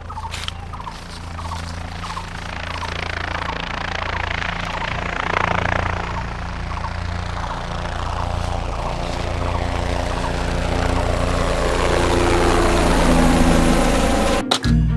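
A steady mechanical drone with a constant low hum that grows louder and cuts off suddenly near the end.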